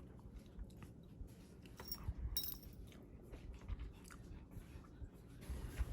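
Someone chewing a mouthful of sushi close to the microphone, with soft scattered clicks and a brief brighter clatter about two and a half seconds in.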